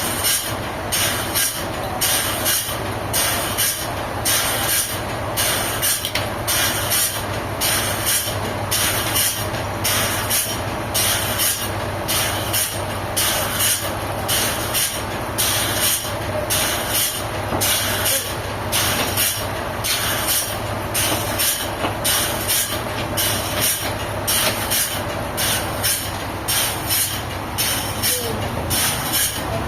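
Sawmill machinery running steadily, with a regular pulsing rhythm of about two surges a second over a constant hum.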